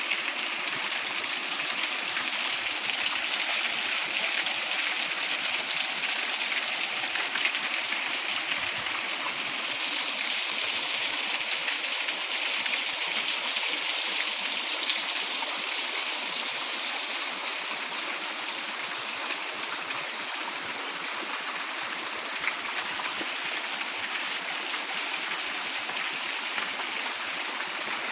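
Waterfall rushing steadily, a continuous even hiss of falling water.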